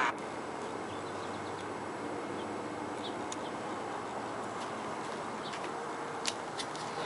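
Two German shorthaired pointers tugging at a Kong toy between them: a steady low hiss with a few faint clicks and taps, a pair about three seconds in and another pair a little after six seconds.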